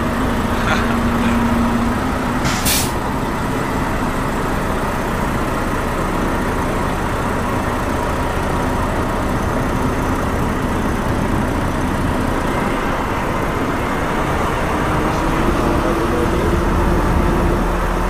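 Volvo semi truck's diesel engine running steadily while the rig moves slowly, with a short air hiss about two and a half seconds in. The engine note rises slightly near the end.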